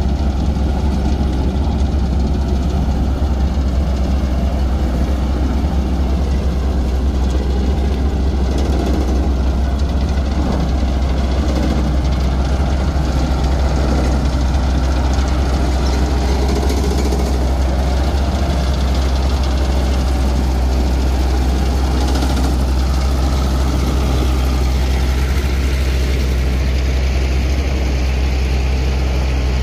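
Diesel engine of a road roller (soil compactor) running steadily, with a deep, even hum and no change in pace.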